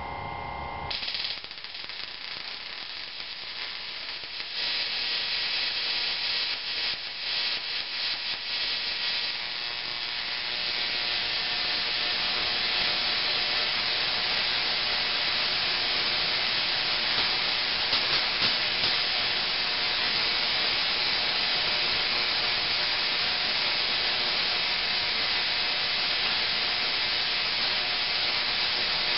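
A home-built 900 W Tesla coil with a synchronous rotary spark gap firing, throwing streamer arcs into the air with a dense, steady hiss of sparks. It starts faintly about a second in, swells unevenly for a few seconds, then settles into a continuous, louder sound from about ten seconds in.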